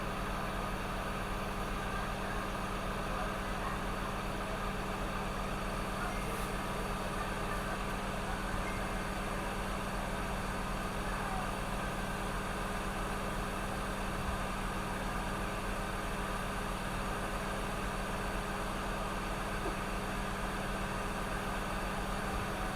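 Steady electrical hum with an even fan-like whir from running repair-bench equipment, unchanging throughout.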